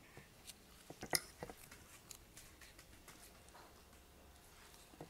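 Quiet table sounds: a few faint, short clicks and light rustles, from a fork on a plate and a small sachet being handled and torn open.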